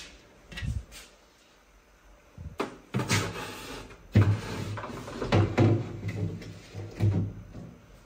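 A glass refrigerator shelf with plastic trim is slid into its rails and knocked into place. There are a few sharp knocks, then a longer stretch of scraping and clunking about halfway through.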